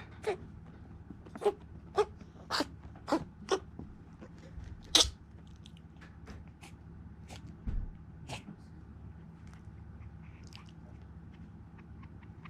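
Smooth coat Chihuahua coughing: about seven short, sharp coughs roughly half a second apart in the first five seconds, the last the loudest, then two fainter ones near eight seconds in. The owner is unsure whether it is a cough.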